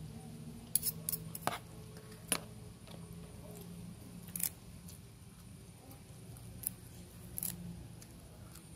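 Scattered sharp clicks of eating by hand and cutlery: a metal spoon and fork knocking on a plastic tray, and fresh leafy greens being picked off their stems. The clicks come thickest in the first couple of seconds, then a few more spread apart.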